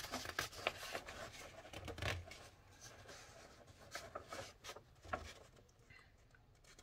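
Paper instruction booklet being handled and its pages turned: soft rustling with a few light clicks and taps, dying down near the end.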